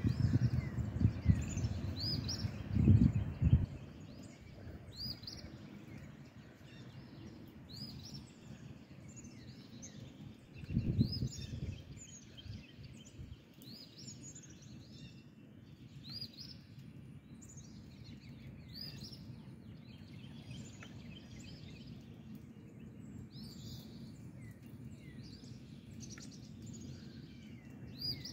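Wind buffeting the microphone in loud low gusts for the first few seconds and again briefly about eleven seconds in, over birds chirping with short high calls every second or two.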